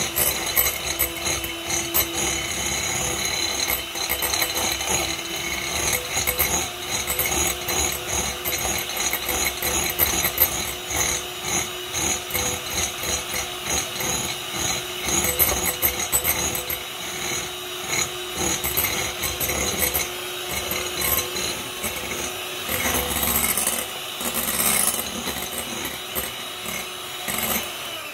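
Electric hand mixer running at a steady speed, its twin beaters whirring as they whip a white mixture in a glass bowl into a thick foam.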